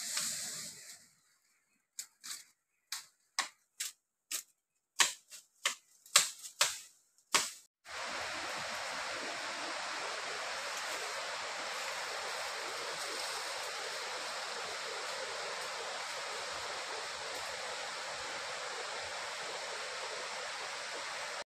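A quick run of short, clipped sounds, each cutting off abruptly into dead silence. Then, from about eight seconds in, the steady rush of running water from a stream or waterfall.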